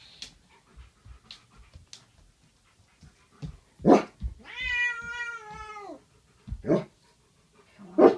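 A dog vocalising: a sharp yip, then a long high whining howl that wavers and drops at its end, then two more sharp yips, the last running into another howl near the end. Light clinks from a metal food bowl come before it.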